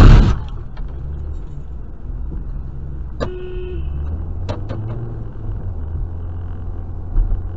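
Car cabin road and engine noise picked up by a dashcam: a steady low hum, opening with a loud, harsh burst of noise. About three seconds in comes a short car horn toot lasting about half a second.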